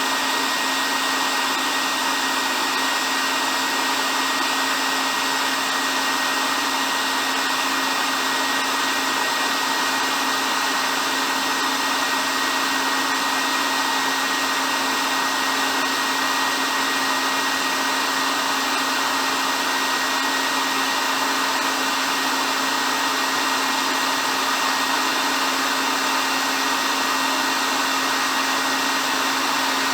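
Hair dryer running steadily: an even blowing rush with a constant motor hum and a thin steady whine, unchanging throughout.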